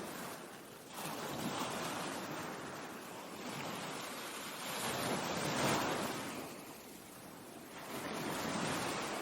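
Ocean surf breaking and washing in, rising and falling in three slow surges, the loudest a little past the middle.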